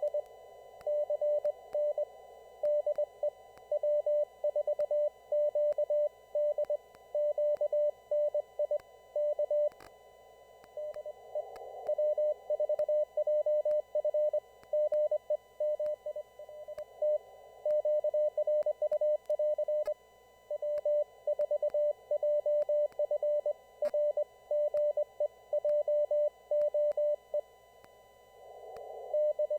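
Morse code (CW) received on an amateur radio: a single steady beeping tone keyed on and off in dots and dashes, over hiss narrowed by the receiver's CW filter. These are stations sending on a formal CW traffic net. The keying pauses briefly about 11 seconds in and again near the end, leaving only the hiss.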